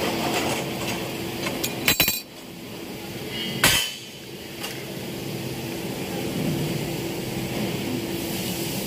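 Metal clinks from a steel vernier caliper handled against a thick laser-cut steel block: a quick cluster of clicks about two seconds in, then one sharp ringing clank a little later. A steady machine hum runs underneath.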